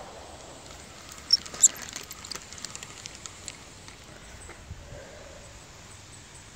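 Handling noise: a scatter of small, sharp clicks and ticks as the phone and fishing rod are moved, two of them louder about a second and a half in.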